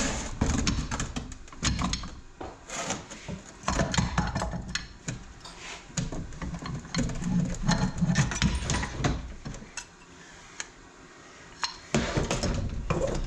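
Irregular clinks, knocks and scraping of metal transmission parts being handled and set down during a TH350 teardown, with a lull about ten seconds in and a fresh clatter near the end.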